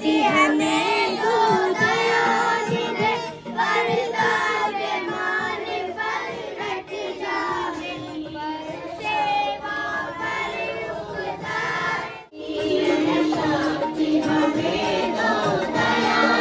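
A group of schoolchildren singing a prayer together in unison, along with recorded prayer music played through a Bluetooth speaker. The singing breaks off briefly about twelve seconds in, then resumes.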